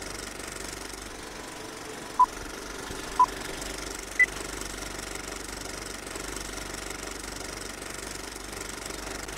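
Three short electronic beeps about a second apart, the first two at one pitch and the third higher, like a countdown signal, over a steady rattling mechanical hum.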